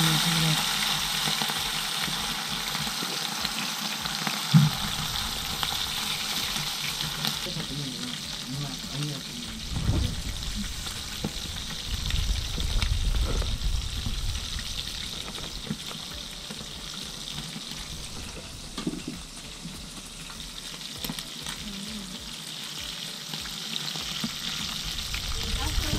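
Trout sizzling steadily as they fry in hot oil in a skillet, with metal cooking utensils clicking and scraping against the pan now and then as the fish are turned. There is one sharp knock about four and a half seconds in.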